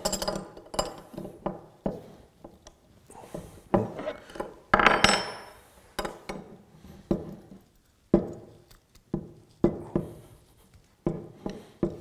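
Steel wrenches clinking and clanking against a padlock as they are fitted onto the shackle and levered to break its second side, which holds. The clicks come irregularly, with a louder metal clank and scrape about five seconds in.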